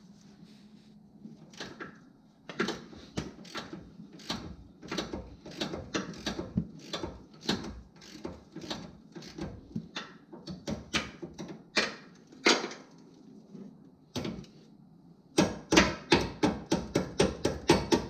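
Hand ratchet wrench clicking in runs of sharp clicks as a bolt is turned at the steering rack. After a short pause the clicks come faster and louder near the end.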